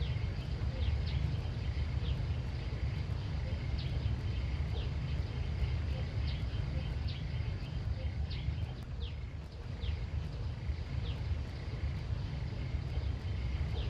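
Outdoor country ambience: a steady low rumble under short, high, quickly falling chirps, about one a second, with a faint steady high drone.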